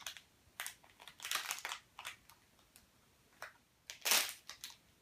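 Foil blind-bag packet crinkling in short, irregular bursts as it is handled and opened, the loudest burst about four seconds in.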